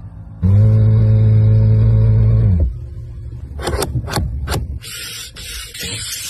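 A small electric motor in the Mercedes-Benz S-Class interior hums steadily for about two seconds, then dips in pitch and stops. A few sharp clicks follow as the light-switch buttons are pressed, and a rustling hiss comes near the end.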